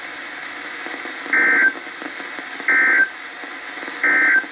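Three short bursts of EAS/SAME end-of-message data tones, the two-tone warbling 'NNNN' code, from a weather radio receiver, over faint radio hiss. Each burst is under half a second, with about a second between them. They signal the end of the broadcast flood warning.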